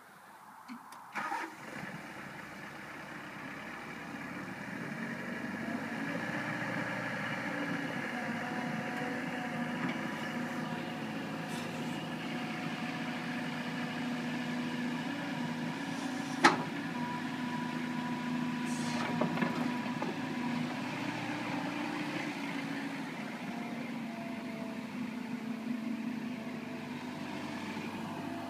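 Sumitomo SH75U excavator's diesel engine running steadily, growing louder over the first few seconds, with a single sharp click about two-thirds of the way through.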